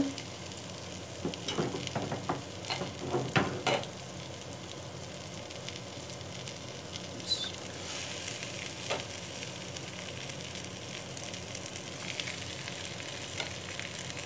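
Metal spoon scraping and knocking against a steel pot as cooked rice is spooned in over a layer of vegetables. The knocks come in a cluster over the first few seconds, with a couple more later, over a steady low hiss.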